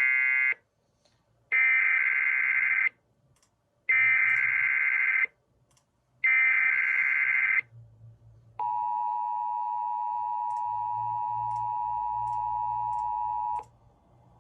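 NOAA Weather Radio Specific Area Message Encoding (SAME) header: four harsh, screechy digital data bursts about a second apart, then the steady 1050 Hz tone-alert signal held for about five seconds, marking a required weekly test.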